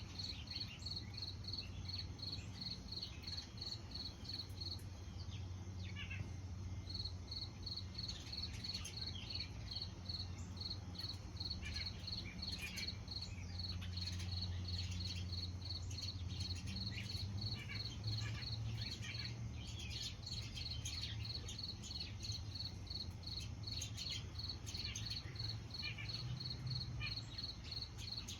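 An insect chirping steadily in high, even pulses, about three or four a second, with a short pause about five seconds in. Scattered short bird chirps and a low steady hum lie underneath.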